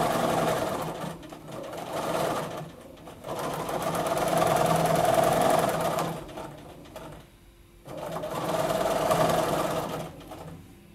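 Bernina domestic sewing machine stitching at speed for free-motion quilting, running in several stretches of a few seconds with short stops between them as the straight lines of the design are sewn.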